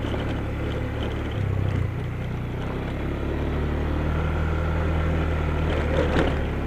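Yamaha Xeon 125 scooter's single-cylinder four-stroke engine running steadily under throttle, pulling up a steep climb.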